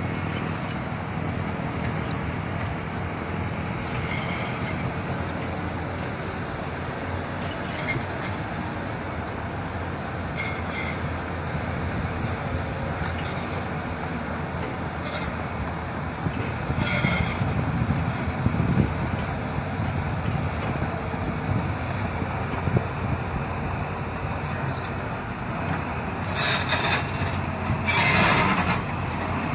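Heavy diesel construction machinery running steadily, with a few brief high-pitched squeaks. A louder rush of noise comes near the end.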